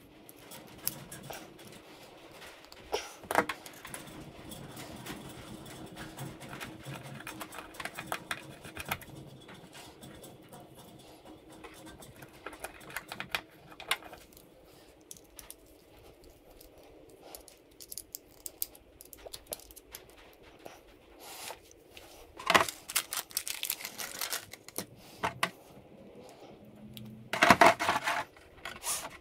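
Hands working small hardware on a wooden workbench: irregular light clicks and rattles of small screws and fittings and a small screwdriver on an RC servo, with a few louder clatters, the biggest about 22 seconds in and near the end as the servo is set into the plastic boat hull.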